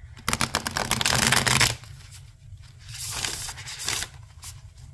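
Riffle shuffle of a new oracle card deck with gilded edges, still a little stiff: a rapid run of card flicks for over a second, then a second, shorter cascade about three seconds in as the cards are bridged back together.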